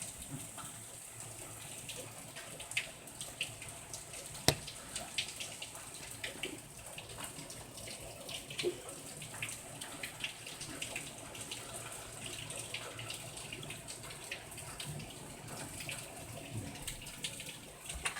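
Hail falling, stones ticking irregularly against hard surfaces over a steady hiss, with one sharp, louder crack about four and a half seconds in.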